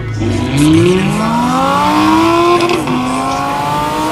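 BMW 335i's twin-turbo inline-six accelerating hard under full throttle, heard from inside the cabin. The engine note climbs, drops at an upshift about two and a half seconds in, then climbs again.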